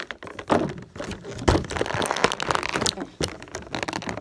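Toy packaging being handled and pulled at: crackling plastic with many sharp clicks and thunks as a figure is worked loose.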